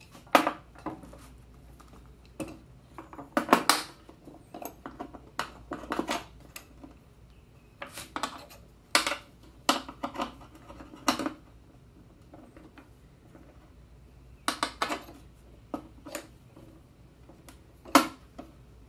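Wooden blocks and a metal C-clamp clacking and knocking against the table saw's metal table and blade as the clamp is fitted over the blocks and screwed tight to hold the blade. The knocks are irregular, some in quick clusters.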